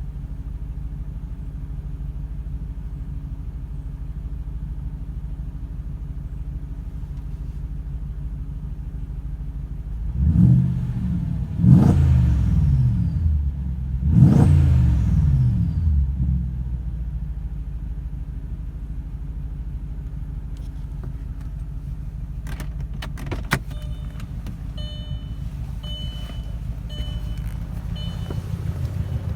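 Audi RS6 engine idling roughly, with an uneven low pulse, which the owner calls a rough idle. It is revved twice, about ten and fourteen seconds in, each time rising and falling back to idle. A few sharp clicks and short repeated high beeps come later.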